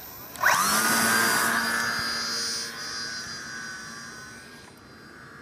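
Electric motor and propeller of a Lee Ulinger SF1 RC foam airplane spinning up to full throttle about half a second in with a quickly rising whine. It then holds a steady high whine that fades as the plane flies away.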